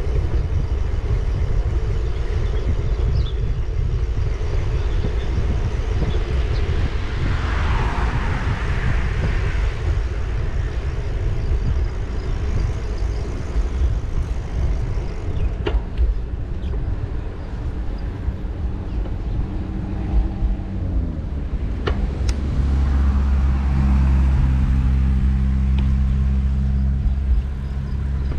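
Road traffic heard from a moving bicycle over a steady low rumble. A vehicle passes about eight seconds in. Just after twenty seconds an engine's hum drops in pitch, then holds steady and low for several seconds.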